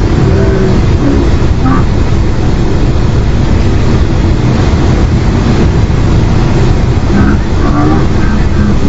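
Metrorail Class 10M5 electric multiple unit approaching along the line: a steady, loud rumble with no break, with a few short higher-pitched snatches over it.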